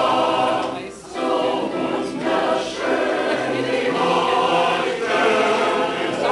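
Mixed amateur choir singing a German song, men's and women's voices together in long held phrases with short breaks between lines.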